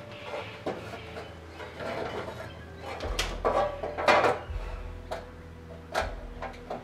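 Sheet-metal cowl of a CNC router being handled and fitted onto the machine's X axis: light scraping and rustling, then several sharp metal knocks about a second apart in the second half.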